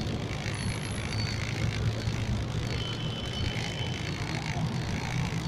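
Steady low rumble of idling traffic, with the engine of a city bus running close alongside.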